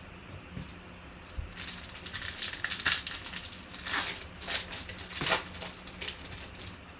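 Trading-card packs and cards being handled: crinkling and rustling of pack wrappers and card stock for about five seconds, starting a second or so in.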